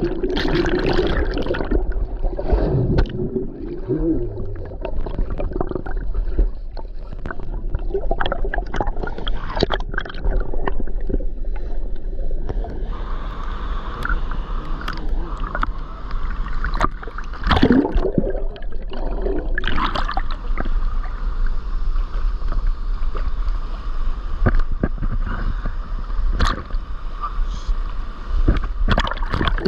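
Creek water sloshing and splashing close to the microphone, over the steady rush of the waterfall, with indistinct voices now and then.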